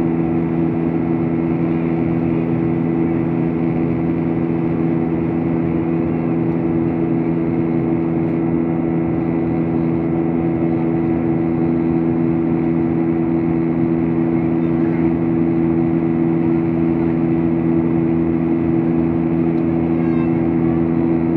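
Steady in-flight cabin noise of an airliner: an unbroken engine drone with a few steady low hums over an even rush of air.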